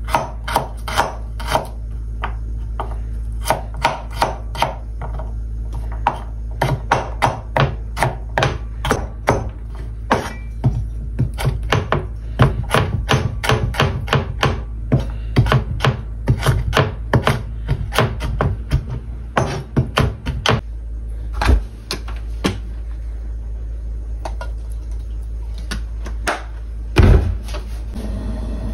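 Kitchen knife chopping garlic fine on a wooden cutting board: quick, uneven knocks of the blade on the wood for about twenty seconds, then only a few scattered knocks and one louder thump near the end, over a steady low hum.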